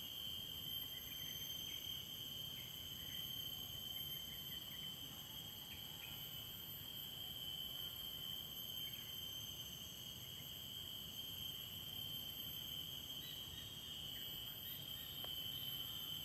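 A steady chorus of insects, high-pitched and shrill, keeps up without a break over a faint low outdoor rumble.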